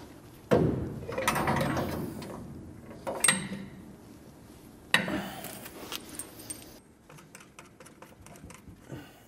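Metal hand tools and shock hardware clanking against the truck's front suspension while a shock absorber is bolted in: three sharp metallic strikes with a ringing tail, a clatter after the first, then a run of quick light clicks near the end.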